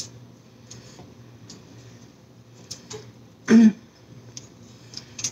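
Close-up chewing of a bacon burger: soft, wet mouth clicks and ticks, with one short, loud sound from the throat about three and a half seconds in.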